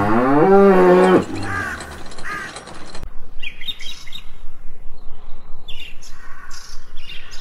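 A cow moos once, rising in pitch and ending about a second in. After it, birds chirp and call in short repeated bursts.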